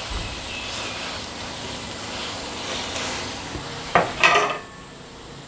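Water boiling in a wok as dumplings are slipped in, a steady bubbling hiss. About four seconds in, a short clatter of a plate being put down on the counter.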